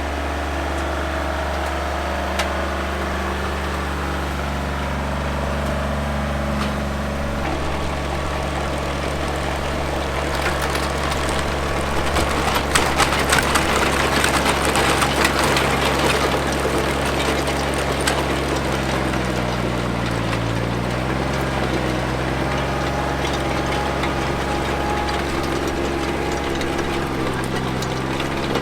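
Trencher's engine running steadily under load. About ten seconds in, a louder grinding, rattling noise of the trencher digging lasts several seconds, and at about twenty seconds the engine's pitch sags briefly and recovers.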